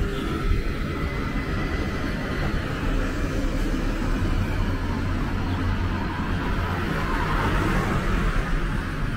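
Road traffic: a steady low engine hum with tyre noise that swells as a vehicle passes near the end.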